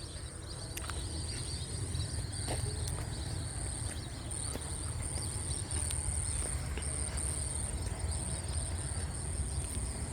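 Night insects, crickets or similar, chirring: a steady high-pitched trill that swells into pulses in places, over a low steady rumble.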